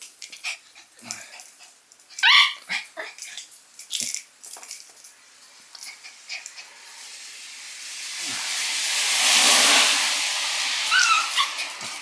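Shiba Inu puppy playing on its own: a short high whine about two seconds in and another near the end, among scattered clicks and taps. In the second half a hiss swells up and fades away.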